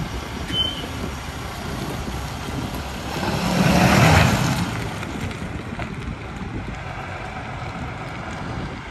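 A vehicle driving, its engine and road noise steady, then swelling to a peak about four seconds in and fading again.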